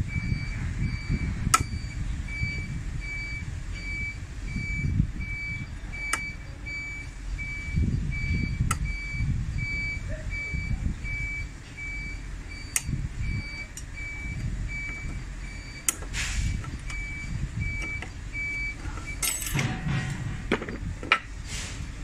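Vehicle reversing alarm beeping steadily at about two beeps a second, stopping near the end, over a low rumble. Now and then sharp metallic clicks from pliers working on the brake disc pack, with a quick run of clinks near the end.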